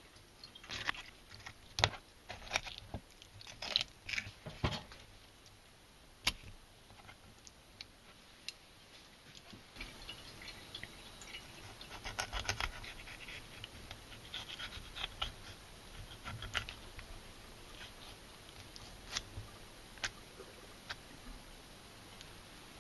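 Kitchen knife cutting a small largemouth bass on a plastic cutting board: scattered clicks and short scraping strokes as the blade works along the bones, louder in the first few seconds, then softer slicing as the rib bones are shaved off the fillet.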